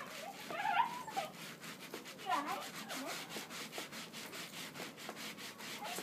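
Dogs whining in a few short cries that rise and fall in pitch, over a fast, regular scratchy noise.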